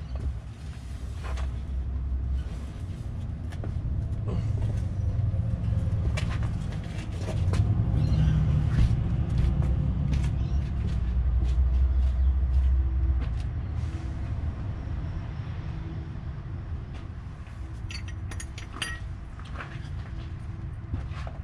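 Low vehicle rumble that builds over several seconds and then fades, with a few sharp metallic clinks near the end.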